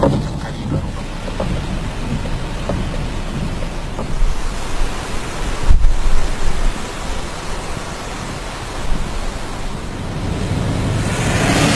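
Cyclone gale wind blowing hard on the microphone with rain, a dense rushing noise with low rumbling gusts. The rush swells near the end, where surf breaks over the shore.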